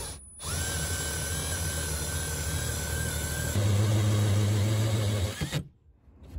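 Milwaukee M18 Fuel cordless drill spinning a 1.5-inch hole saw, enlarging the hydrant entry hole through the wall's mounting block. The motor starts about half a second in and runs steadily, turns deeper and louder a little past halfway, and cuts off suddenly about five and a half seconds in.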